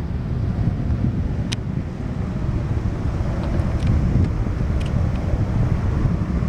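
Wind buffeting the microphone: a steady, gusty low rumble, with a few faint short ticks.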